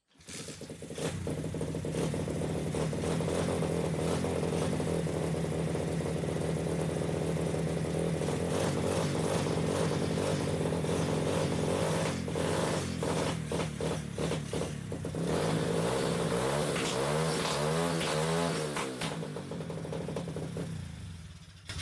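SSR 125cc dirt bike's four-stroke single-cylinder engine kick-started from cold on full choke, catching about a second in and running steadily. Near the end the engine speed rises and falls a few times before it is shut off.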